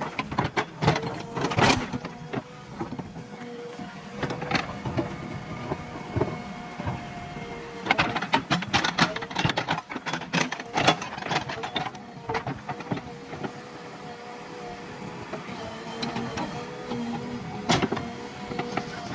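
JCB 3DX backhoe loader's diesel engine running steadily with a held hum, while the bucket digs, scraping and knocking against soil and stones in several clusters of sharp clatter: about a second in, around four seconds, from about eight to eleven seconds, and near the end.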